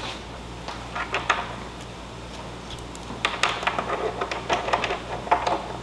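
Light clicks and taps of small metal hardware being handled and fitted into a carbon fiber motorcycle fender. They come more thickly in the second half, over a steady low hum.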